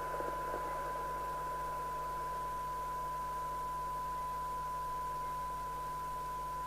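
Steady 1 kHz test tone with hiss, heard from the Rotel RVC240 CB radio's receiver as it picks up a weak tone-modulated test signal during a receiver sensitivity measurement. A low mains hum runs underneath.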